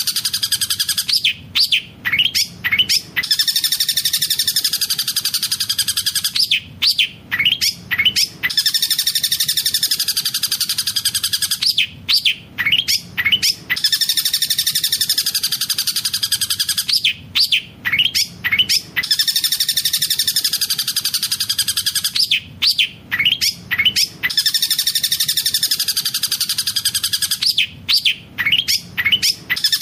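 Long-tailed shrike (cendet) singing a fast rolling trill studded with mimicked collared kingfisher (tengkek buto) calls. Each phrase is a dense rapid trill of about three seconds followed by four or five sharp separate notes, the pattern repeating about every five seconds.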